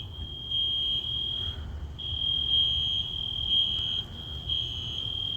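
Building fire alarm sounding a single high electronic tone that grows louder and fainter every second or two.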